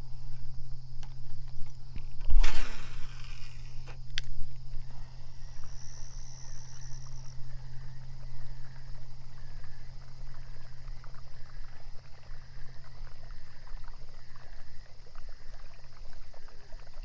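A fishing cast whooshing out about two seconds in, a click a couple of seconds later, then a reel being cranked in a slow, regular rhythm as the lure is retrieved. A steady low hum runs underneath.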